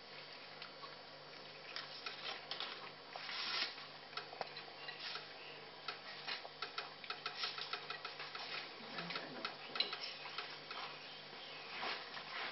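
Puppies eating from a dish: quick, irregular clicks and mouth smacks of chewing and licking, several a second.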